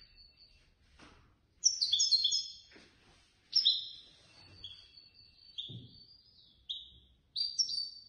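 A caged European goldfinch singing: short phrases of quick, high twittering notes broken by brief pauses, the loudest bursts about a second and a half in and again near the end.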